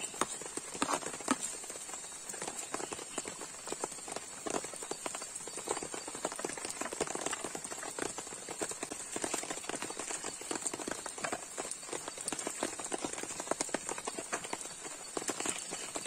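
Heavy rain drumming on a tent, a dense, uneven patter of drops hitting the fabric.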